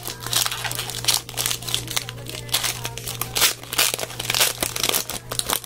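Trading card pack wrapper being torn open and crinkled: irregular crackling and rustling bursts throughout.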